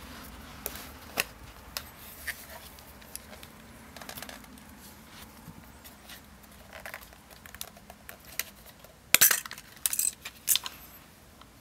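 Handling noise and small plastic clicks from a Canon AF35ML compact film camera as its back-cover latch is slid. A loud cluster of sharp clicks about nine seconds in, as the back cover comes open.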